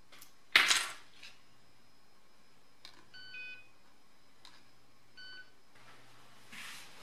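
Short electronic beeps from the Arduino payment box's buzzer as RFID cards and a key fob are held to its reader to be registered: one beep about three seconds in and another about five seconds in. The loudest sound is a single sharp clack a little over half a second in.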